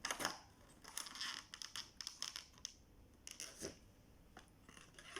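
Packaging being handled during an unboxing: irregular rustling and crinkling with small clicks and knocks, loudest near the start and again about a second in.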